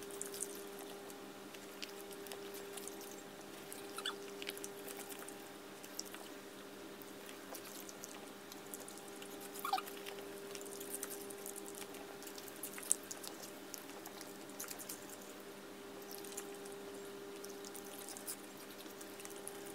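Small dogs taking treats from a hand, licking and chewing with faint scattered clicks and smacks, over a steady low hum.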